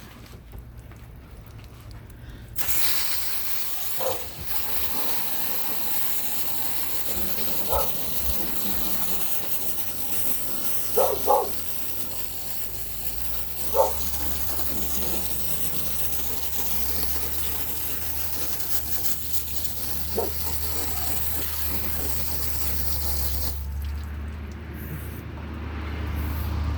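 Hose spraying water onto the pen floor: a steady hiss that starts about two and a half seconds in and cuts off near the end, with a few short sharp sounds over it. A low steady hum comes in during the second half.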